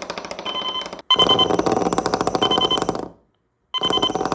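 Bed-shaker alarm clock going off: the bed shaker's vibration motor buzzes and rattles against the concrete floor in pulses of one to two seconds, with short high beeps on top. The pulses are separated by short pauses, one of about half a second near the end.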